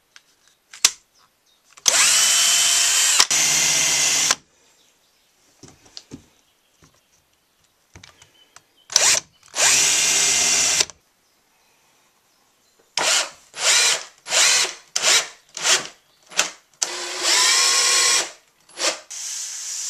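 Cordless drill/driver running in bursts: two long runs drilling screw holes through painted wooden window-sill trims, then a quick string of short trigger bursts and one longer run as decking screws are driven in.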